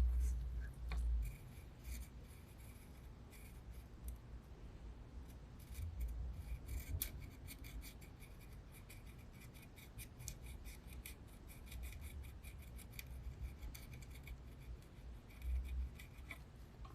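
Faint scraping and clicking of small hand tools working on a game console's circuit board, with light bumps from handling.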